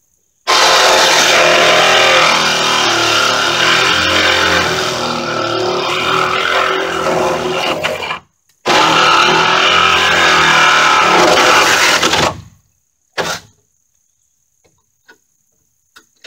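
Power saw cutting through the ends of 2x4 roof rafters to trim them flush with the top of the wall: one long cut of about seven seconds, a short pause, then a second cut of about four seconds, with a brief blip of the motor after.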